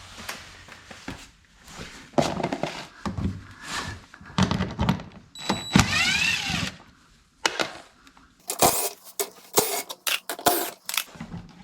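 Hand tools and fasteners being handled while plastic splash guards are worked on: irregular knocks, clicks and metallic clattering, with a short rasping stretch just past the middle and a run of sharper clatters near the end.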